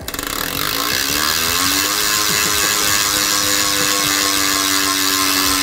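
The freehub of a Cadex hollow carbon rear disc wheel buzzing loudly as the wheel is spun by the cranks and left to coast. The buzz comes in at once and stays steady. Under it is a hum that rises in pitch over the first couple of seconds and then holds.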